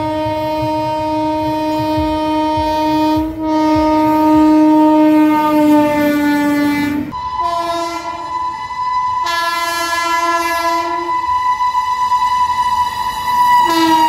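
Indian Railways electric locomotive sounding its air horn: one long low note for about seven seconds, then a higher note in several blasts with short breaks, a low note returning near the end. Rail rumble from the approaching train runs underneath.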